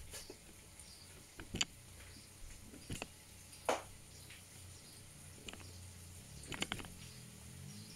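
A few short clicks and knocks, scattered and irregular, over a faint steady low hum.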